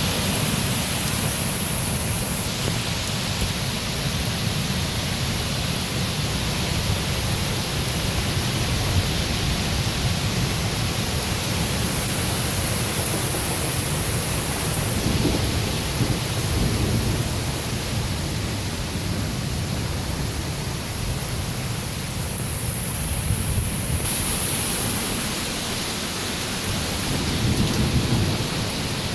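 Steady heavy rain with low rumbling thunder; the rumble swells near the end.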